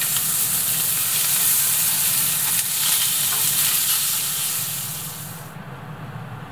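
Food sizzling in a frying pan, a steady hiss with a few crackles, dropping away about five and a half seconds in.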